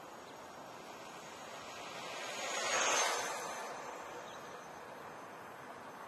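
Gotway Tesla electric unicycle passing by: a hiss of tyre and motor swells to a peak about three seconds in and fades away again.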